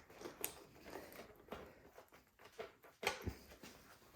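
Faint scattered clicks and scrapes of a snowblower's plastic choke lever being jiggled and worked loose from its plastic mount, with a louder knock about three seconds in.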